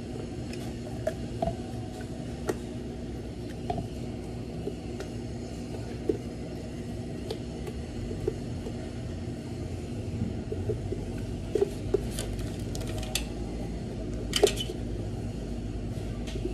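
Thick blended frappe sliding out of a blender jar into a plastic cup, with scattered light clicks and knocks of the jar and a sharper knock near the end, over a steady low hum.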